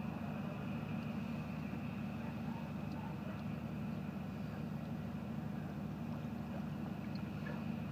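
Steady low drone of the fast ferry Ramón Llull's engines running as the ship gets under way from its berth.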